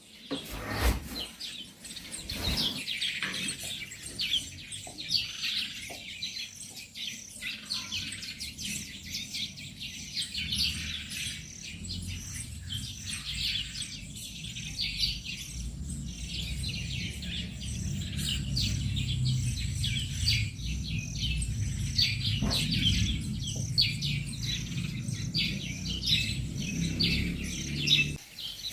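A dense chorus of many small birds chirping and calling rapidly and continuously, with a low rumble underneath that grows louder from about halfway in. A couple of sharp knocks sound near the start.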